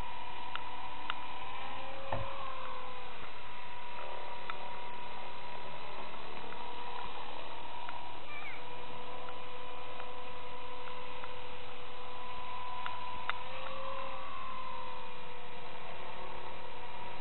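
Walkera DF60 radio-controlled helicopter running, a steady high-pitched motor and rotor whine as it lifts off and flies. The pitch bends briefly about two seconds in and again around thirteen to fifteen seconds in as the throttle changes.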